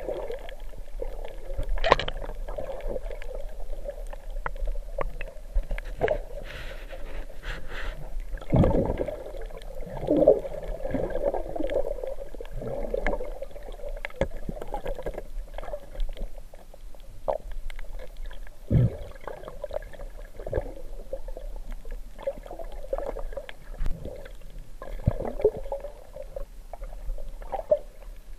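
Muffled underwater sound picked up by a camera in its housing during a night dive, with a steady dull murmur of water and scattered clicks and knocks, a few of them louder thuds.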